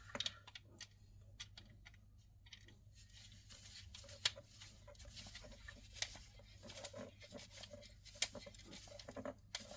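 Quiet scattered clicks and scratching from hands working electrical wires into a socket's terminals, with a few sharper clicks spread through.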